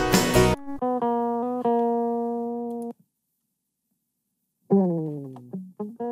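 A dense full song mix cuts off, then a clean, undistorted electric guitar plays a few held notes alone. After about two seconds of silence it plays again, starting with a note that slides down in pitch. The guitar sounds dry because its Guitar Rig amp-simulator distortion was removed when the mixer was reset.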